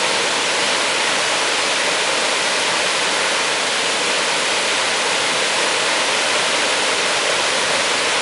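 Waterfall spilling over a rock ledge into a pool: a steady, even rush of falling water.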